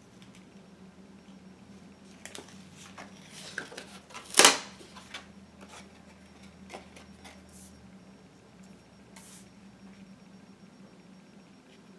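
Paper and card being handled and moved on a tabletop: scattered rustles and light taps, with one loud, sharp rustle about four and a half seconds in and a shorter one near nine seconds. A faint steady hum runs underneath.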